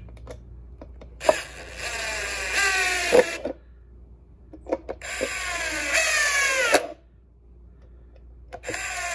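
Porter-Cable cordless drill driving screws into laminated board, in two runs of about two seconds each. The motor's pitch falls during each run as the screw pulls in and seats, then cuts off abruptly. A third run starts near the end.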